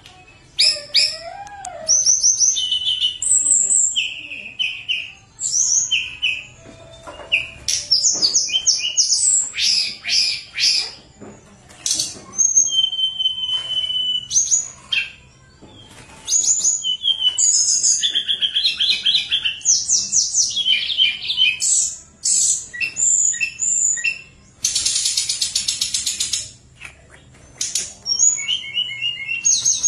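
A caged tledekan gunung songbird singing continuously in varied high whistled and trilled phrases, flute-like, with a long steady whistled note about halfway through and a harsh buzzing rattle a few seconds later.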